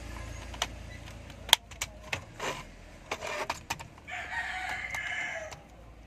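Sharp plastic clicks and knocks as a car's AC control panel and its wiring connectors are handled and fitted. The loudest click comes about one and a half seconds in. About four seconds in, a rooster crows for about a second and a half.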